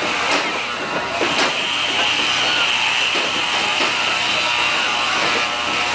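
Background music with a steady high hiss, and a few sharp clicks in the first second and a half.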